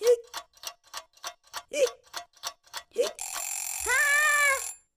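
Fast clock-like ticking, about four ticks a second, broken three times by Ted the cartoon cat's short hiccup. A little past halfway the ticking stops and a loud hiss starts, lasting over a second, with a long rising-then-falling cry over its second half.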